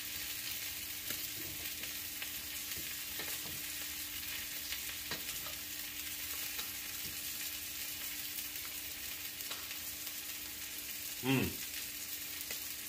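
Ribeye steak sizzling on a Blackstone flat-top griddle, a steady frying hiss, with a steady low hum underneath and a few faint clicks of a fork on a plate.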